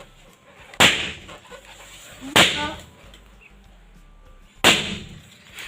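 Three sharp snaps, spaced about one and a half to two seconds apart, each dying away quickly: the phone and its box being handled during unboxing.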